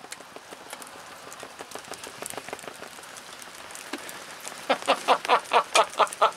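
Light rain pattering, then, from about three-quarters of the way through, a man laughing close by in a quick, even run of 'ha' bursts, about five a second.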